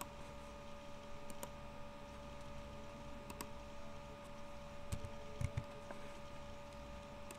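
Faint room tone with a steady electrical hum from the recording computer's microphone, broken by a few sharp computer-mouse clicks in pairs and a couple of keystrokes as text is typed.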